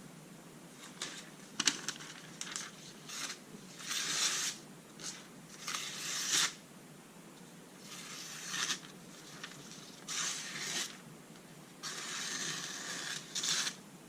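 A series of irregular scraping strokes, each lasting from a fraction of a second to about a second, with short pauses between them.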